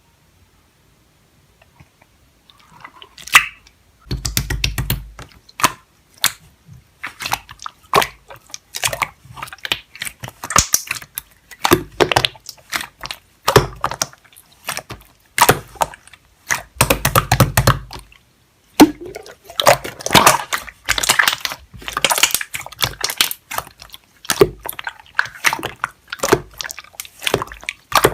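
Slime being squished, pressed and poked by hand, giving irregular sharp clicks and small wet pops. It starts about three seconds in.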